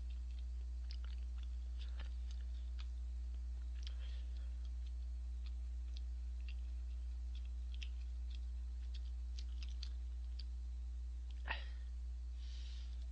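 A person chewing tteokbokki rice cakes, with scattered small mouth and toothpick clicks, over a steady low hum. One louder short smack comes about eleven and a half seconds in.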